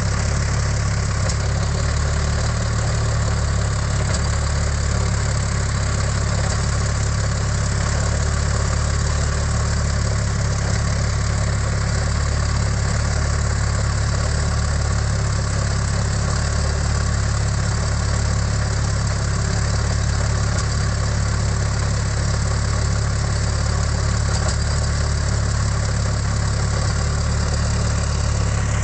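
Rolls-Royce Merlin III V12 aero engine of a Hawker Sea Hurricane running steadily and evenly on a ground run, with a deep, unchanging note.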